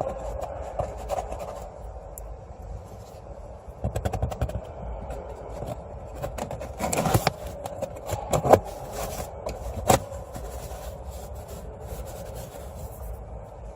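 Scraping and rubbing of hand work on a car's cabin air filter and its plastic housing during a filter change, with several sharp clicks or knocks, the loudest about halfway through.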